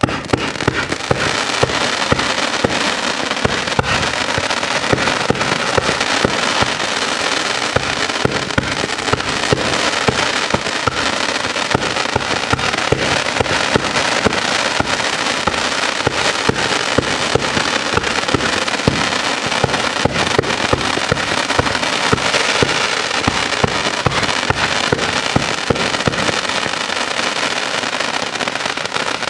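A 61-shot fan barrage firework cake firing: a dense, unbroken stream of shots and popping bursts, with crackling stars among them.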